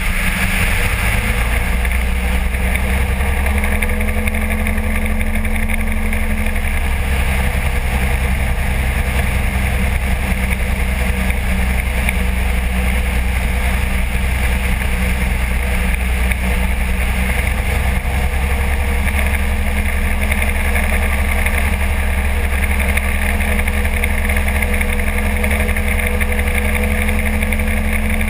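Kolb ultralight aircraft's engine and pusher propeller running steadily in flight, a constant loud drone; the engine note shifts slightly in pitch a few seconds in.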